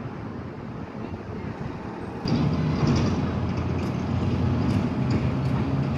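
Street traffic with a vehicle engine running; about two seconds in the sound steps up louder to a steady low engine hum.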